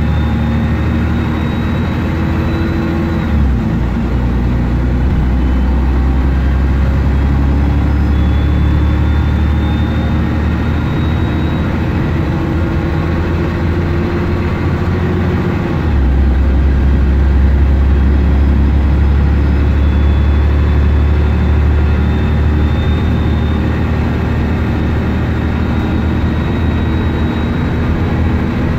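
Scania N113DRB double-decker bus's 11-litre straight-six diesel engine running under way, heard from the upper deck, with a faint high whine that slowly rises in pitch. The engine note drops about three and a half seconds in and comes back heavier about sixteen seconds in.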